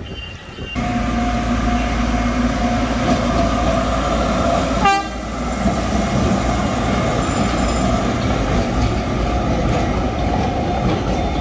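Huwei Sugar Factory's narrow-gauge sugarcane train going by close at hand. The locomotive comes in loud about a second in and runs steadily, with its horn sounding. There is a short sharp burst about five seconds in.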